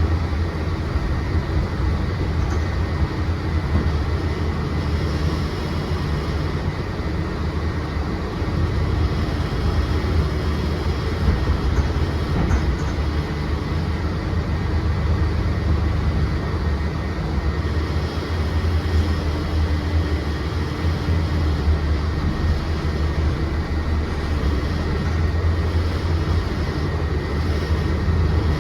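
Mercedes-Benz Citaro C2 city bus heard from inside the cabin: a steady low engine drone with running noise, and a faint steady high whine.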